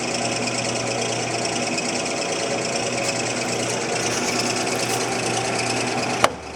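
Clausing Model 1030 10-inch lathe running at low speed, its headstock gears and lead screw driving the carriage through the engaged half nuts: a steady mechanical whirr and rattle. Near the end a single sharp clack, and the running sound drops.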